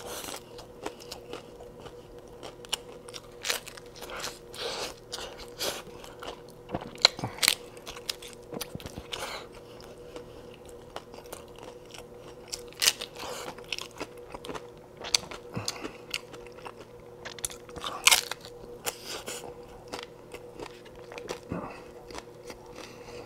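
Crisp hard taco shells crunching as they are bitten into and chewed up close, with irregular crackly crunches over a faint steady hum.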